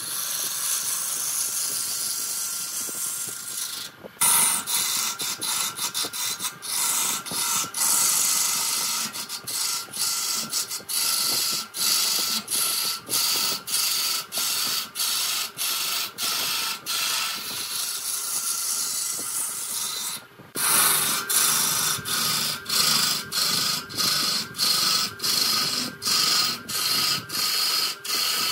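Wood lathe turning, with a cutting tool working the spinning wood: a steady hiss with a faint whine, dipping about twice a second, and two short sudden breaks about four and twenty seconds in.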